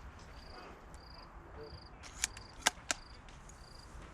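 Three sharp cracks of airsoft fire in quick succession a little after two seconds in, the middle one the loudest, over insects chirping at a regular pace.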